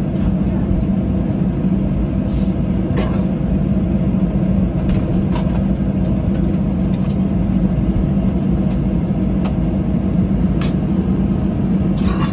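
Cabin noise of a Boeing 737-700 taxiing after landing: the steady rumble of its CFM56-7B engines at idle, heard through the fuselage. A thin steady high whine runs over it, with a few light clicks scattered through.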